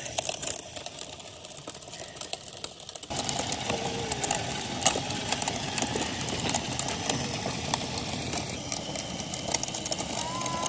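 Radio-controlled rock crawler's electric motor and gears whining as it tows a wagon loaded with two children, with its tyres and the wagon's wheels rolling and crackling over rough asphalt. The rolling noise grows fuller about three seconds in.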